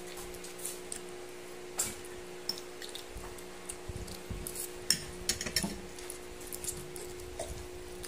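Metal fork and spoon clinking and scraping against a plate as instant noodles are eaten, with soft wet mouth sounds, over a steady low hum. The clinks are scattered, with a quick cluster about five seconds in.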